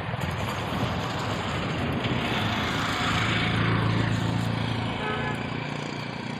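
A motor vehicle's engine running, swelling louder about two seconds in and easing off near the end, over a steady hiss.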